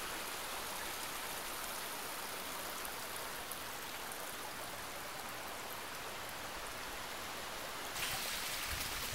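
Small forest creek running over rocks, a steady rushing trickle that grows a little louder near the end.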